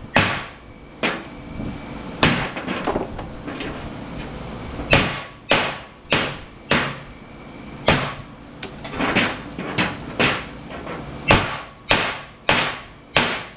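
Repeated hammer blows on metal, about sixteen sharp strikes at uneven spacing, each with a short ring. They come from knocking apart small transformers from HID light ballasts to recover their copper.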